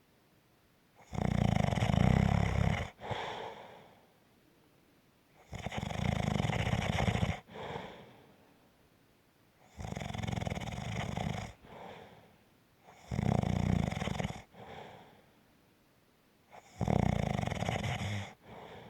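Snoring in a steady rhythm: five long, loud snores roughly every three and a half to four seconds, each followed by a shorter, softer breath out.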